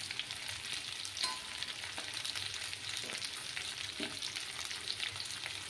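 Ghati kachu (taro corm) pieces frying in mustard oil in a wok, a steady sizzle full of fine crackles. A few faint taps sound through it.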